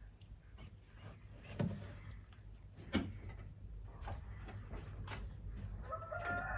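Scattered light knocks and taps, two louder ones about a second and a half and three seconds in, over a low hum; acoustic guitar music begins near the end.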